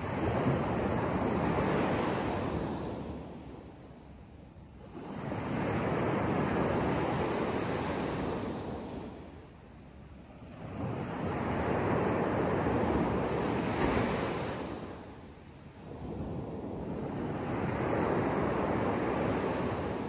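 Small sea waves breaking on a sandy beach and washing up the shore. Each surge rises and fades over several seconds, four times, about every five to six seconds.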